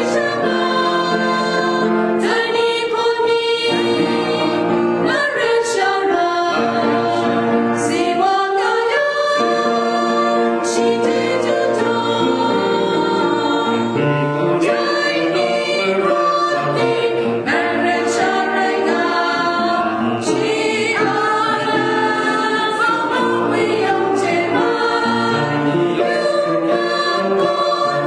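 Small mixed choir of men and women singing together in parts, holding long notes.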